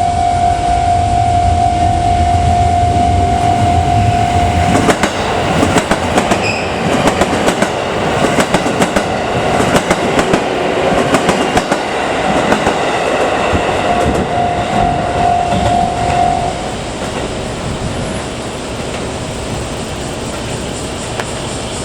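A JR West 281 series Haruka limited-express electric train passes over a level crossing. From about five seconds in, its wheels clatter rapidly over the rail joints for about ten seconds. Before the train arrives a steady high tone sounds, and it returns briefly near the end of the pass.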